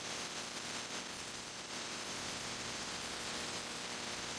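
Ultrasonic parts cleaner running with a small-engine carburetor in its bath: a steady hiss with a faint hum underneath.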